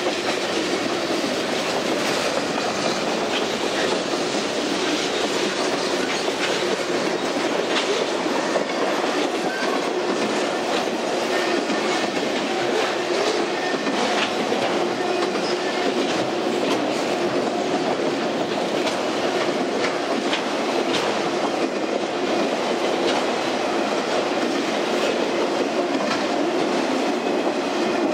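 Freight cars of a long train rolling past on the rails: a steady wheel-on-rail rumble with regular wheel clicks over the rail joints.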